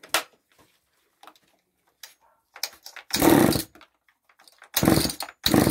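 Husqvarna 357 XP two-stroke chainsaw being pull-started: three rasping pulls on the recoil starter, each about half a second long, with the engine turning over but not catching.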